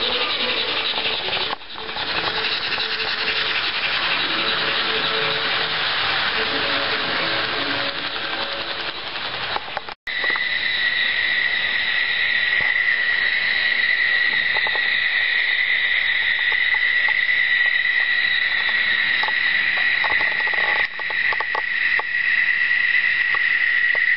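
HO-scale Roco BR 03.10 model steam locomotive with an ESU sound decoder running on the layout: a steady hiss, then after a cut a steady high-pitched whine, with a few light clicks near the end.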